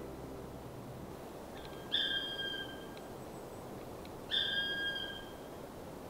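Black woodpecker calling close by: two drawn-out, plaintive single notes about two seconds apart, each about a second long and falling slightly in pitch at the end.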